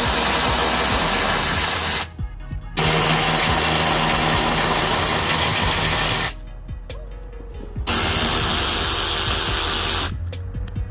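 Cordless electric ratchet running, backing out the bolts of a plastic under-engine splash shield in three long runs of two to three seconds each, with short pauses between.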